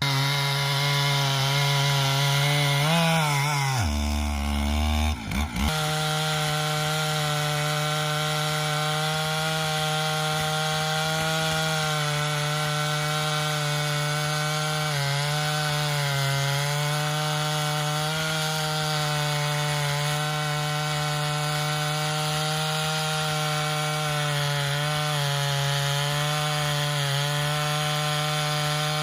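Gas chainsaw on a chainsaw mill, running at high revs while ripping a slab lengthwise through a big oak log. About four seconds in the engine speed drops sharply for a second or so, then climbs back and holds steady through the cut.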